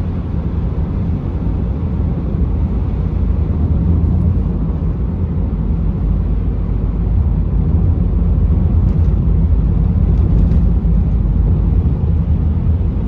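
Road and engine noise heard inside a moving car: a steady low rumble that swells a little in the middle.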